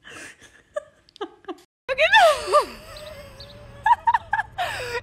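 Domestic cat yowling in long, drawn-out meows that slide down in pitch, starting about two seconds in, after a couple of seconds of faint short sounds.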